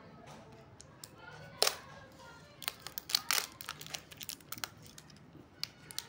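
Plastic seal wrap on a plastic tub crackling and snapping as a knife cuts and peels it, in a string of sharp clicks, the loudest about a second and a half in.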